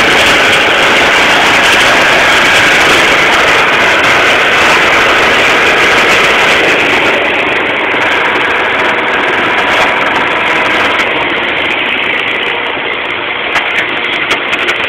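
Tracked site dumper's engine running loudly and steadily as the machine is driven round in a doughnut. It eases off a little about ten seconds in, with a few short knocks near the end.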